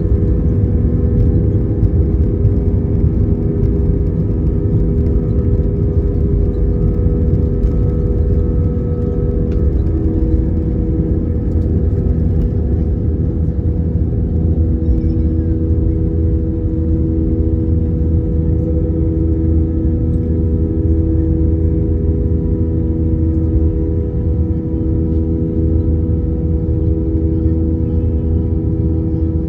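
Airliner engines at takeoff power, heard inside the cabin: a loud, steady rumble with a constant hum over it, through the takeoff roll and into the climb.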